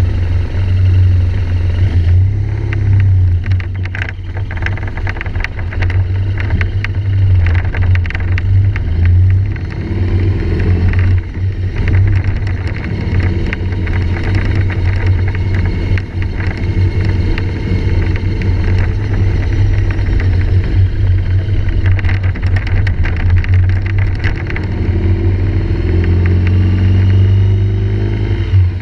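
GoPro Hero3+ camera rattling in its housing: rapid, irregular clicking over the steady low drone of a running vehicle. The rattle persists even in a new housing, so the housing is not its cause.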